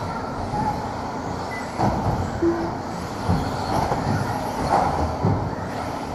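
Two-wheel-drive electric RC buggies running warm-up laps on an indoor carpet track: a steady whirring rumble of motors and tyres with frequent light knocks, echoing around a large hall.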